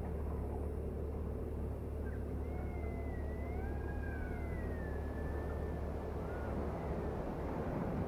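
Steady low vehicle rumble, with thin faint tones gliding slowly up and down above it.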